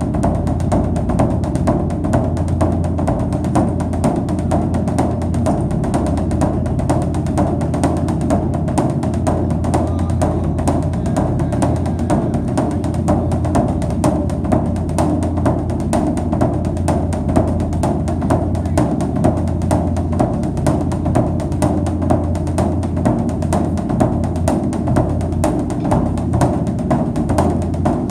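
Background music with steady, dense drum and percussion beats over a sustained low bass.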